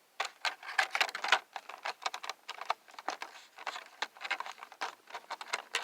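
Irregular small clicks and rattles, several a second, as a rotary tool accessory kit's plastic case and its small bits are handled and fitted into place.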